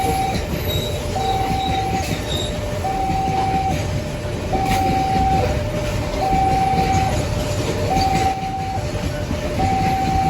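Level crossing warning alarm sounding an even two-tone high-low signal, about one cycle every 1.7 seconds, over the low rumble of a long Babaranjang coal train passing.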